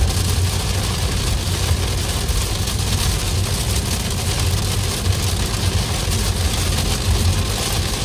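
Steady road and tyre noise inside a car's cabin at highway speed on a wet road: a low rumble under an even rushing hiss, with rain on the windscreen.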